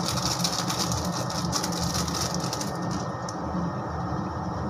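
Egg and soyabean curry simmering in the pan: a steady bubbling crackle with a high hiss that eases about three seconds in, over a low steady hum.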